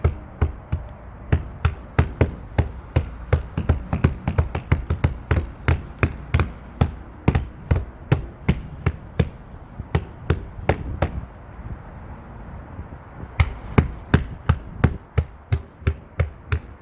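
Open hands slapping a replacement front panoramic sunroof glass panel on a Mercedes GLE, about two or three sharp slaps a second, pressing it down into the fresh urethane bead until it sits almost flush with the roof. The slapping pauses for about two seconds after the middle, then resumes.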